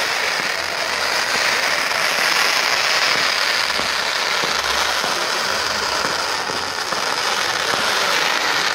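Pyrotechnic ground fountains (gerbs) spraying sparks: a loud, steady hiss with light crackles running through it.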